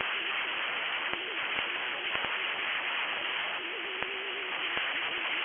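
Steady radio static hiss with a few faint clicks, heard in a pause of the broadcast alert voice.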